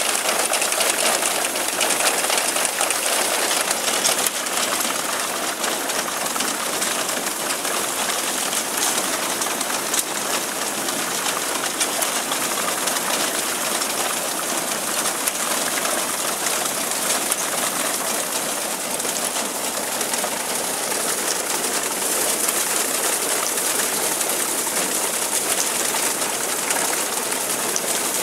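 Tractor-drawn reaper-binder working steadily through standing corn: a continuous mechanical clatter of the cutter knife, reel and conveying gear with the rustle of cut stalks, and the tractor running underneath.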